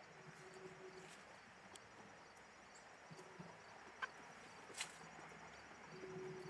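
Faint, intermittent low calls of chickens, with two short clicks about four and five seconds in.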